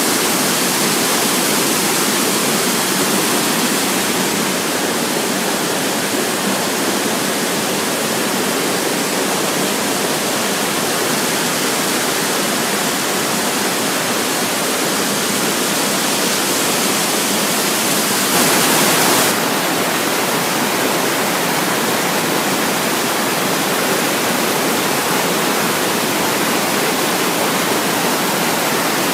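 Fast mountain stream rushing over boulders: a steady, loud noise of white water, briefly louder for about a second a little past the middle.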